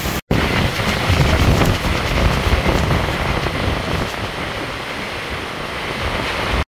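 Heavy rain pouring down in a strong wind, with gusts rumbling on the microphone. The sound cuts out for a moment just after the start.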